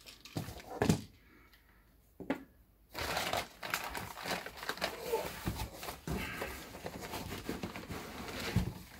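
Cardboard packing box and plastic bag handled while unpacking a 5-gallon resin jug: a few sharp knocks, the loudest about a second in, a short near-quiet pause, then from about three seconds in continuous plastic rustling and crinkling with small clicks and bumps.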